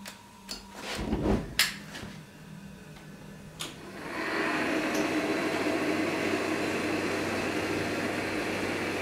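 A few metal knocks and clanks, loudest about a second in, then about four seconds in the forge's burners light and keep running with a steady rushing noise.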